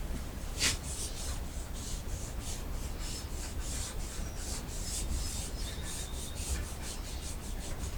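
Rubbing strokes on the bare wood of a white oak flagstaff as stain is wiped on, about three strokes a second.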